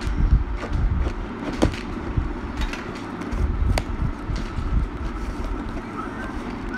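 Cardboard box being opened by hand: flaps rubbing and scraping, with a few sharp taps and clicks, over a continuous low rumble.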